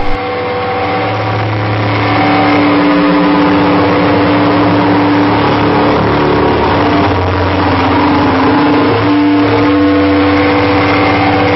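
Experimental noise music played live on electronic devices and effects pedals through an amplifier: a loud, dense drone with steady low hum tones under a harsh hiss, changing little throughout.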